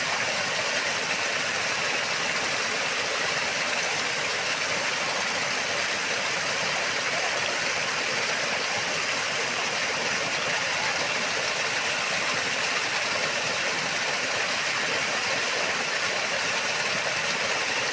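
Waterfall rushing: a steady, even wash of falling water that does not change.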